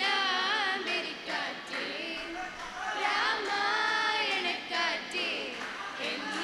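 A group of voices singing together into microphones, women's voices most prominent, with a long held note about halfway through.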